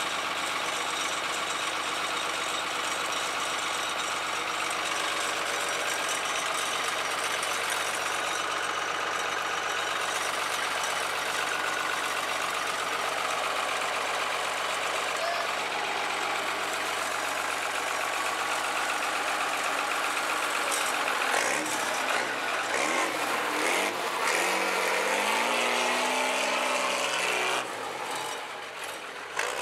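Diesel engine running at a steady idle, then revved up and down several times in the last third.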